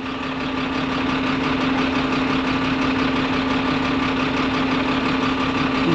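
Engine of a large vehicle running steadily at low revs, an even drone with no change in speed.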